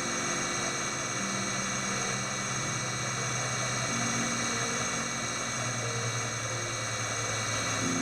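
Kokusan top-discharge centrifuge running steadily: an even motor hum and whir with a high, steady whine.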